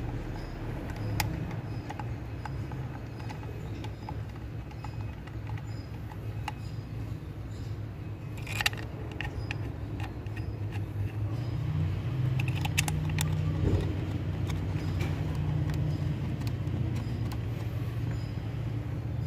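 Small plastic and metal clicks and rattles as ignition coil packs and their connectors are handled and pressed back onto the spark plugs of a Mercedes W210 engine, a few sharp clicks standing out. Under it runs a steady low hum that gets louder about two-thirds of the way through.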